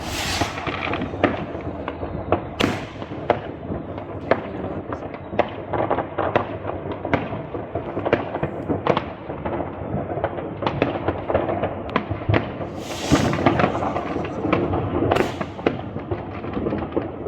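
New Year's Eve fireworks going off all around: a continuous rumble of distant explosions with sharp bangs about every second, and a few loud hissing bursts, one a few seconds in and two more near the end.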